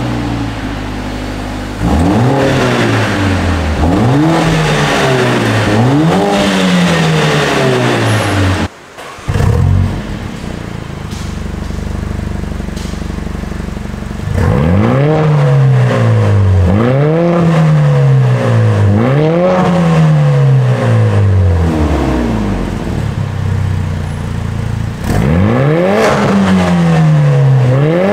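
Mercedes-AMG A45 S (W177) 2.0-litre turbocharged four-cylinder revved in repeated quick blips from idle at its quad tailpipes, each blip rising and falling in pitch. The first blips go through the stock exhaust. After a cut about 9 s in they go through a Fi valvetronic catback with catless downpipes, valves closed. From about 25 s in the valves are open and it is louder.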